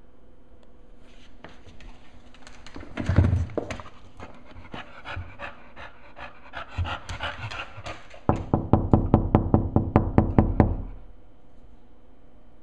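Dog panting, with a louder burst about three seconds in and a fast rhythmic run of about five breaths a second near the end.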